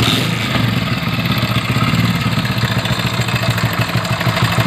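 Motorcycle engine starting and idling with a fast, even pulsing clatter. This noise is often taken for engine noise, but the mechanic suspects a slack timing chain, though it could still be the engine.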